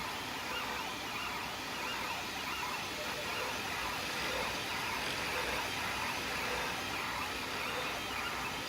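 Anycubic Kossel delta 3D printer printing, its stepper motors whining in tones that rise and fall several times a second as the print head traces round perimeters.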